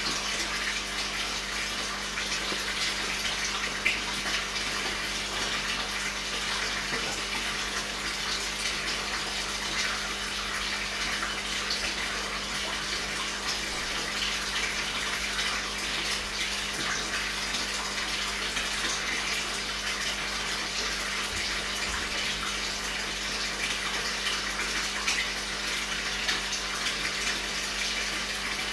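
Aquarium water circulation: a steady splashing flow of water into the tank, with a constant low hum from the pump under it.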